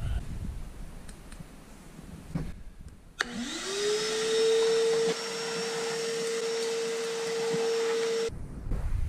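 Shop vacuum switched on about three seconds in: its motor spins up with a quickly rising whine, settles into a steady whine over a rush of air, and cuts off suddenly near the end. Before it starts there are a few light handling knocks.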